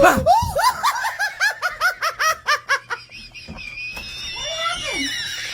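A person laughing hard: a loud sudden start, then a quick high-pitched run of 'ha's about four a second, trailing into a long high squeal near the end.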